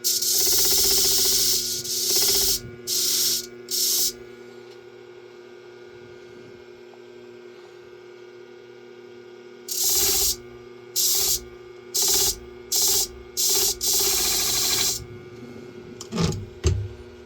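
Shear-sharpening machine's motor humming steadily while the clamped bevel-edge shear blade is passed over the spinning hone in hissing grinding strokes: one long stroke, two short ones, a pause of several seconds, then a run of short strokes ending in a longer one. A couple of low knocks near the end.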